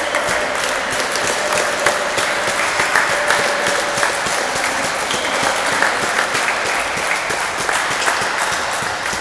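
Steady applause from many hands, from spectators and from the handball players themselves clapping at the end of the match.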